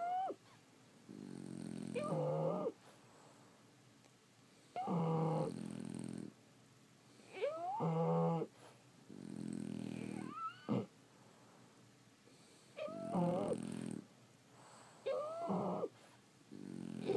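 Sleeping French bulldogs snoring. Each breath cycle has a low rattling snore and a higher whistling wheeze that rises and falls in pitch, repeating about every two and a half seconds.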